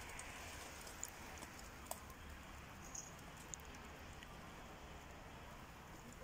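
Faint crackling of a wood fire's hot embers under a barbecue grill: a few small scattered pops and ticks over a low steady hiss.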